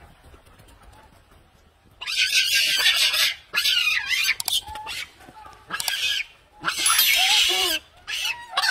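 Macaques screaming and squealing in shrill, loud bursts with wavering pitch, starting about two seconds in after a quiet start.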